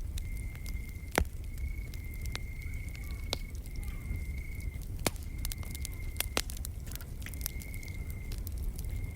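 Wood fire crackling, with sharp pops scattered through over a low steady rumble; the loudest pops come about a second in and around five and six seconds in. An insect trills steadily on one high note in phrases of about a second with short breaks between them.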